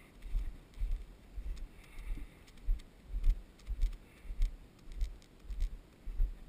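Footsteps of a person walking at a steady pace on a dirt trail covered in dry leaves, about two steps a second: low thuds with a light crunch of leaves on each step.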